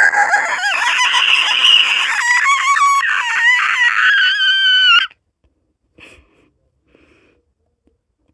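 A person's voice making a loud, high-pitched creature screech that wavers and glides in pitch, cutting off suddenly about five seconds in. A few faint short sounds follow.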